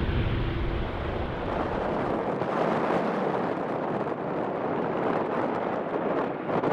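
Jet engine noise from landing airliners, with wind on the microphone. A Boeing 787-8 gives a deep rumble as it touches down. About two seconds in this changes to the lighter, steady engine noise of an Airbus A320 on final approach.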